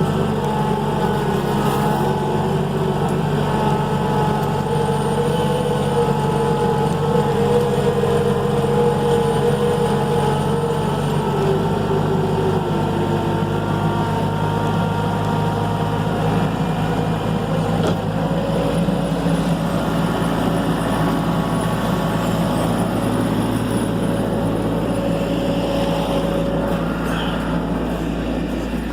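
Skid steer engine running steadily, with a higher whine that slowly rises and falls in pitch during the first half.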